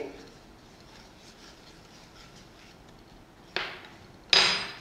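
Wooden spatula stirring spices through oil in a nonstick pan: faint at first, then two short scrapes near the end, the second louder.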